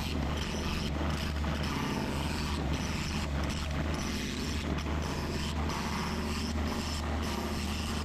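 Mini excavator's diesel engine running steadily with a constant low hum.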